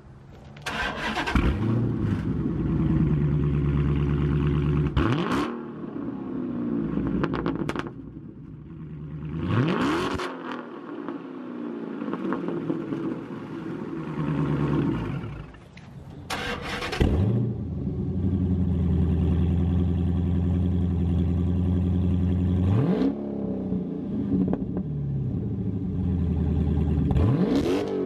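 Dodge Challenger Scat Pack's 6.4-litre HEMI V8 revved from idle several times through the stock exhaust with the mid-muffler deleted, each time rising quickly, holding steady for a few seconds, then dropping back to idle. Near the end the exhaust has nothing but the catalytic converters ('open cats'), idling and then revving up again.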